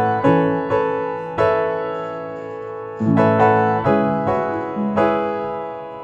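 Background music: piano chords struck about once or twice a second, each ringing out and fading.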